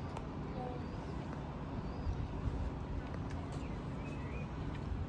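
Outdoor background: a low steady rumble, with faint chirps and distant voices over it.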